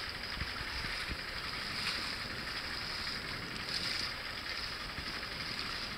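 Steady rush of water along the hull and outrigger float of a small boat under way.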